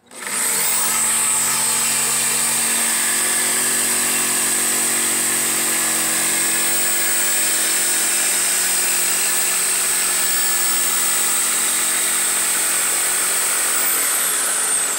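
Corded jigsaw starting up and sawing steadily along a curved line through a thin wooden sheet, with a steady high whine over the blade's rasping. It shuts off right at the end.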